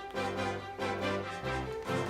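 Background music: an upbeat tune with a bass line and a bright melody, notes changing in a regular rhythm.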